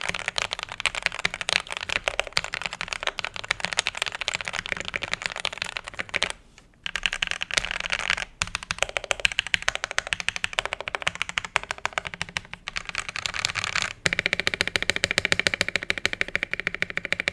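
Fast, continuous typing on a DK87 custom mechanical keyboard fitted with KTT Kang White linear switches: a dense run of keystroke clacks, with a short pause about six seconds in.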